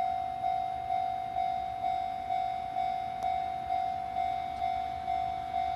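Railway level-crossing warning bell ringing at an even pace, about two strokes a second, each stroke dying away before the next. The crossing alarm signals a train approaching.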